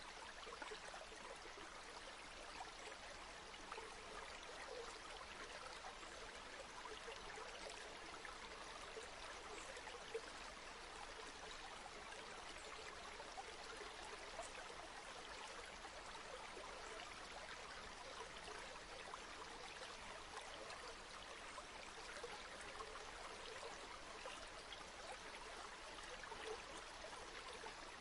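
A river flowing steadily: a soft, even rush of water, with one brief tick about ten seconds in.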